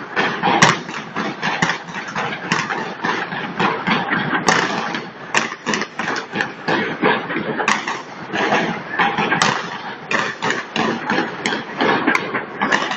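Aerial fireworks exploding close overhead in a dense barrage: a continuous run of sharp bangs and crackles, several a second, with no pause.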